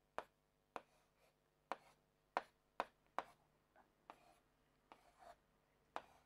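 Marker pen writing on a whiteboard: about ten faint, short taps and scratchy strokes at uneven intervals as the letters are drawn.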